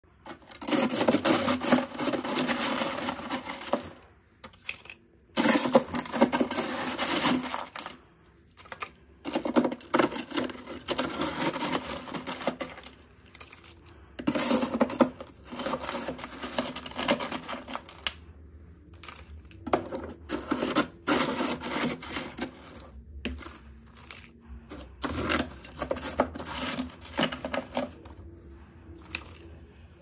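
Thick humidifier-grown freezer frost being scraped and chipped off a freezer's plastic wall with a metal scraper and a knife: crunching, scratching scrapes in bursts of a second or two with short pauses between. The strokes turn shorter and clickier in the second half.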